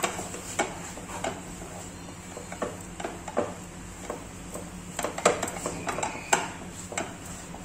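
Spatula scraping and knocking against a non-stick frying pan while stirring thick gram-flour (besan) batter as it cooks down and thickens. The strokes come irregularly, several a second, with a few louder knocks past the middle.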